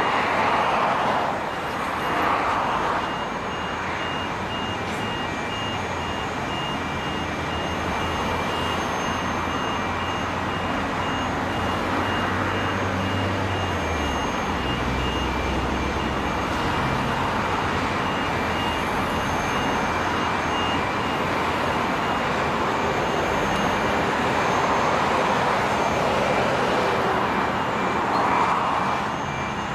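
Heavy construction machinery running with a steady rumble, while a warning beeper sounds in short repeated beeps.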